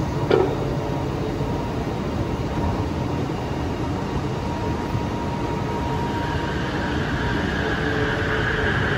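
Bombardier Innovia Metro 300 light-rail train standing at the platform as its doors close, with a short tone and a click just after the start. From about six seconds in, a whine from its propulsion builds as the train starts to pull away.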